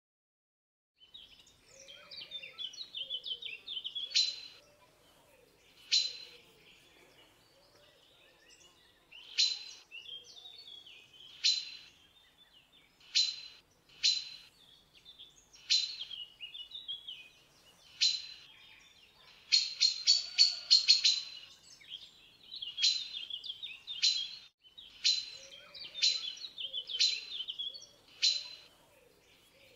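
Eurasian magpie calling: harsh, single chacking calls every second or two, with a fast rattling run about twenty seconds in, over softer continuous twittering.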